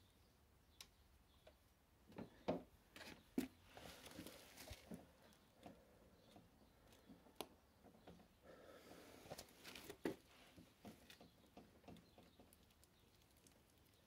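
Faint hand-work noises close to the microphone: scattered light clicks, taps and brief rustling or scraping, with two sharper knocks about two and a half and three and a half seconds in.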